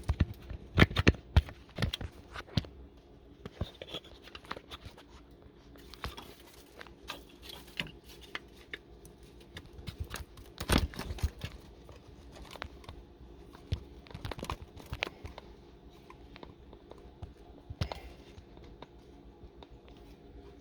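Hands working a plastic wiring connector onto a fuel pump driver module: scattered clicks, knocks and rattles as the plug is pushed and fought into place, busiest in the first couple of seconds and again about halfway through.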